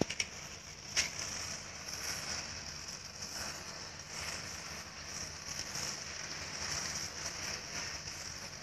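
A heap of burning matchsticks crackling, with a few sharp pops near the start and one about a second in, over a steady high hiss.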